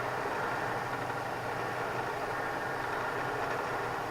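Bridgeport milling machine running with its spindle turning, a steady, even hum.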